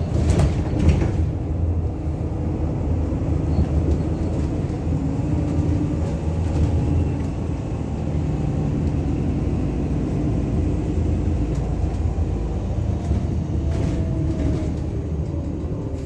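Inside a moving bus: steady engine and road rumble, with a couple of knocks about half a second in.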